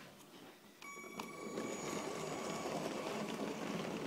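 Motorized Lego train running along plastic track: a steady high electric-motor whine that starts about a second in, joined by a steady rattle of the wheels and gears.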